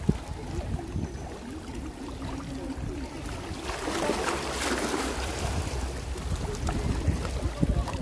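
Wind buffeting the microphone over shallow sea water lapping and sloshing, louder for a stretch about halfway through.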